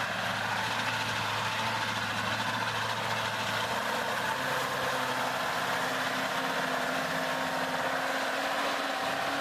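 Heavy truck's diesel engine idling steadily, its lowest hum fading out about four seconds in while a slightly higher steady note carries on.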